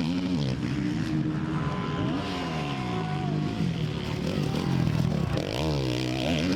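Motocross bikes' four-stroke engines on track, several at once, revving up and down in repeated rises and falls as riders throttle on and off.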